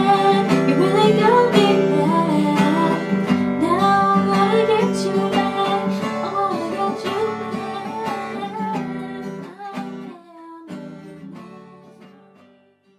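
Acoustic guitar being played, with chords and melody notes ringing, gradually fading out until it dies away near the end.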